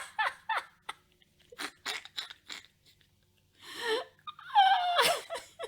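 Short crinkling crunches of trading-card pack packaging and cards being handled, then a man's wordless groan of disbelief about four seconds in.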